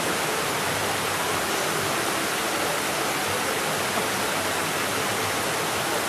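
Steady, unbroken rushing noise, like water running or wind across the microphone, with no distinct events.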